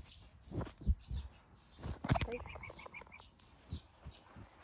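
Several short knocks and rustles of the phone being handled close to the goat, with a quick run of about five bird chirps a little over two seconds in and faint bird calls around.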